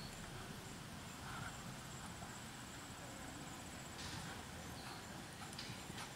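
Faint hoofbeats of a German Sport Pony trotting on the sand footing of a dressage arena, over a light outdoor background.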